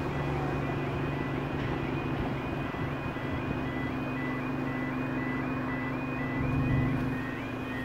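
Two level crossing warning alarms sounding, each a short rising warble repeated about once a second, slightly out of step with each other, over a steady low hum.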